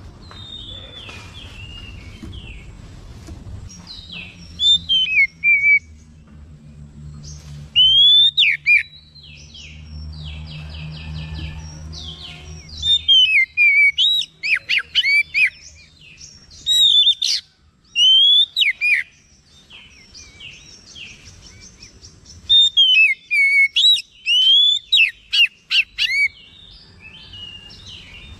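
Oriental magpie-robin singing in loud bursts of varied whistled phrases, with sharp rising and falling glides and quick runs of repeated notes, separated by short pauses: an excited bird in full song, running through its mimicked phrases.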